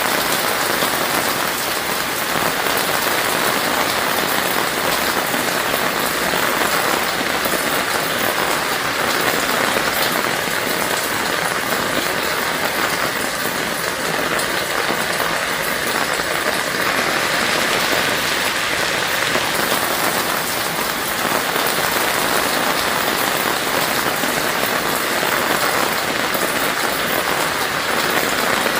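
Heavy rain falling steadily on surfaces, a dense, even hiss of many drops with no let-up.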